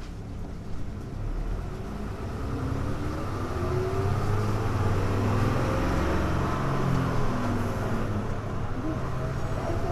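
Hino Blue Ribbon U-HU2MLAA city bus diesel engine accelerating away from a stop, heard from inside the cabin: the engine note rises in pitch and grows louder over the first several seconds, then holds steady.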